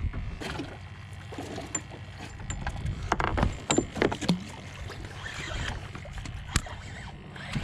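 Small fishing boat on the water: a steady low rumble with scattered knocks and clicks, a cluster of thumps about three to four seconds in and a sharp knock near the end.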